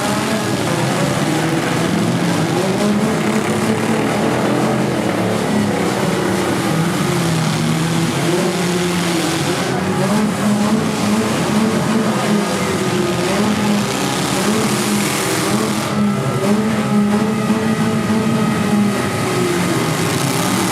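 Many four-cylinder demolition derby cars running and revving at once, several engine notes rising and falling over one another.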